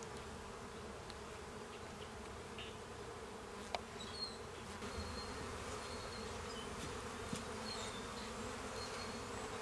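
Honeybees buzzing steadily around an opened hive, with a single light click a few seconds in.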